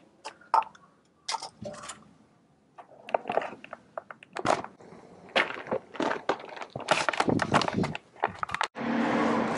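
Irregular metallic clicks, clinks and scrapes of hand tools and axle parts as the C-clip lock is taken out and the Dana 35 rear axle shaft is slid out of the housing. A steady rushing noise starts suddenly near the end.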